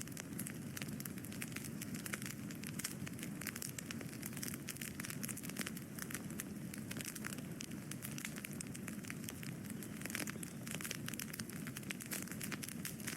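Wood fire burning: a steady low rush of flames under dense, continuous small crackles and pops from the burning wood.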